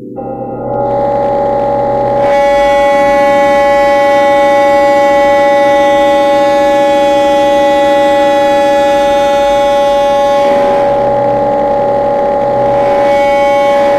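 Loud synthesized electronic drone: several steady held tones sounding together like a chord, growing fuller and louder about two seconds in, thinning briefly after about ten seconds and filling out again near the end.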